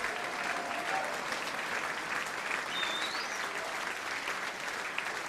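Theatre audience applauding steadily, dense clapping.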